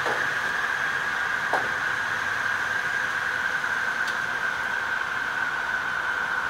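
Machinery running with a steady high whine over a hiss, with no cutting. Two short falling squeaks, one at the start and one about a second and a half in.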